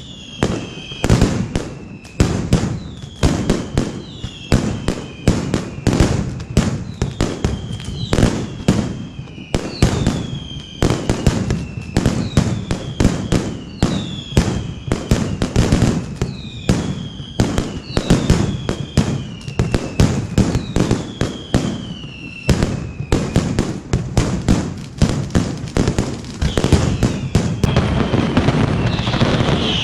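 Mascletà firecrackers going off in a fast string of loud bangs, one or two a second, mixed with whistles that each slide down in pitch. Near the end the bangs thicken into a denser, continuous crackling roll.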